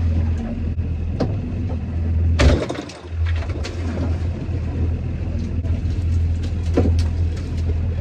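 Boat engine running steadily, with a scattering of sharp knocks and one louder thump about two and a half seconds in, just after which the engine note briefly drops away.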